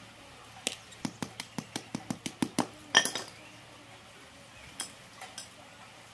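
A quick run of a dozen or so sharp metal clicks as a loose saw chain's links are worked with pliers. This is followed by one louder, ringing metal clink as the pliers are set down on the concrete floor, then a few faint chain clicks.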